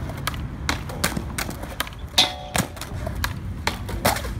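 Skateboard wheels rolling on smooth concrete with a steady low rumble, under scattered sharp clacks and knocks of boards; the loudest is a sharp clack with a brief ring about two seconds in.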